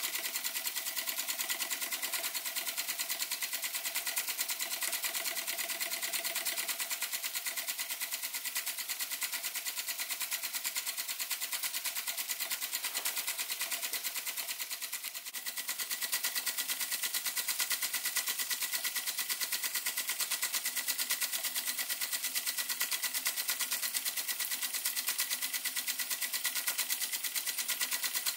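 Weeden No. 14 toy steam engine running steadily under steam, with a fast, even beat of exhaust puffs and light mechanical clatter and a thin steady high tone underneath. The run is very smooth.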